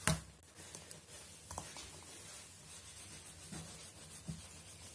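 Faint scratching of a plastic wax crayon rubbing on a colouring-book page, with a sharp click right at the start and a few soft taps.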